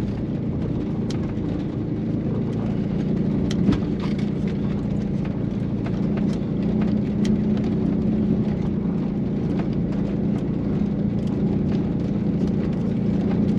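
VW Vanagon Syncro van driving steadily up a soft dirt track, its engine running under load, heard from inside the cabin. Scattered light clicks and rattles sound over it.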